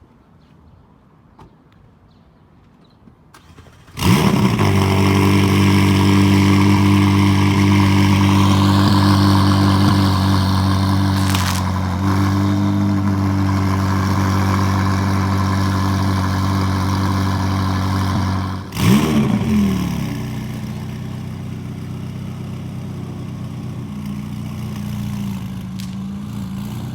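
A performance car's engine starting about four seconds in, flaring up and settling into a loud, steady idle. About two-thirds through it dips, flares up briefly again, then idles more quietly.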